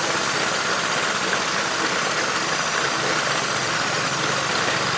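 Steady mechanical running noise, like an engine or motor running: an even hiss over a low hum, unchanging throughout.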